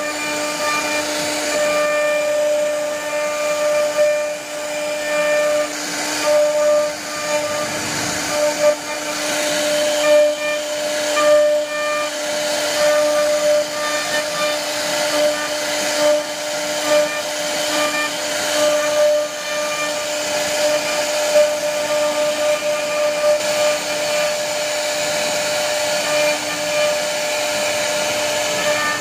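CNC router spindle running at a steady high whine while its carving bit cuts a relief pattern into a wooden board, with a rough cutting hiss that swells and dips as the bit moves through the wood.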